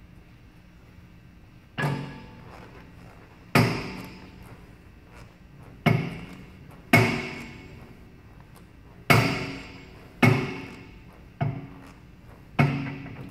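Exercise machine's metal parts clanking eight times at an uneven rep pace, about one to two seconds apart. Each clank rings briefly.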